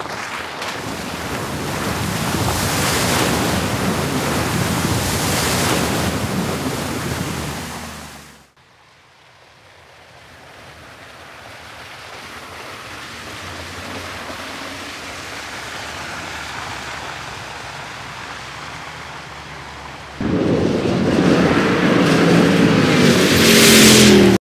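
2022 Land Rover Defender V8's supercharged V8. First comes a long rushing of splashing water with the engine running beneath it, fading and stopping about 8 s in. Then the engine grows louder as the vehicle approaches, and about 20 s in it jumps to a loud revving run that rises in pitch as it accelerates past.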